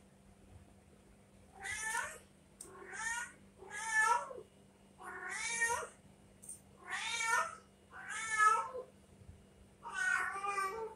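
Domestic cat meowing seven times, one drawn-out call every one to two seconds, each bending in pitch: the insistent meows of a cat wanting to be let outside.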